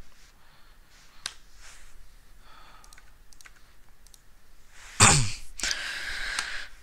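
A person sighing loudly about five seconds in, breath rushing out as the voice falls in pitch. A faint computer-mouse click comes a little over a second in.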